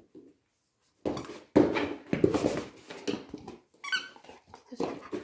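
Dog making short noisy bursts of sound while playing with a toy, with a brief high squeak about four seconds in.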